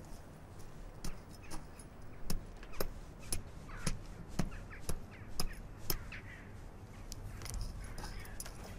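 Hand gardening tools working a flower bed, making a run of sharp taps and clicks about two a second. Faint bird chirps sound behind them.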